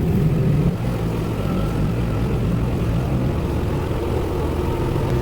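A vehicle engine running steadily at a low, even pitch while driving.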